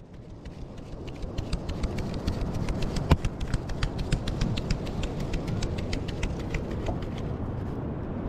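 Flour being sifted by hand through a wooden-rimmed sieve, the sieve shaken with a fast, even patter of light taps. The sound fades in over the first second or so, and one louder knock comes about three seconds in.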